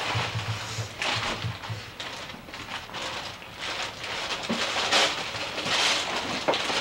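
Wrapping paper rustling and tearing in repeated crackly bursts as a present is unwrapped.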